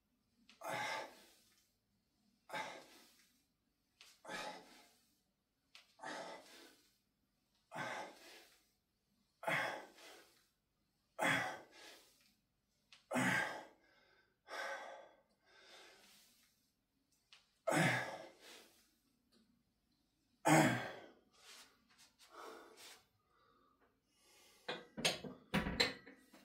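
A man breathing hard through a set of barbell back squats: a forceful exhale with each rep, about one every two seconds, around a dozen in all. Near the end there is a quick run of sharp knocks.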